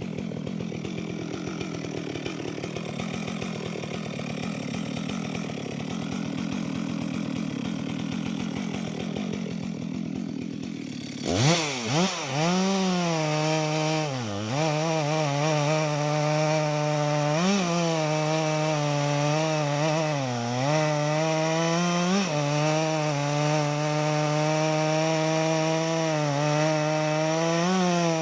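Two-stroke chainsaw idling with a rapid pulse, then opened to full throttle about eleven seconds in and cutting into wood, its engine pitch sagging several times under load and briefly rising again between cuts.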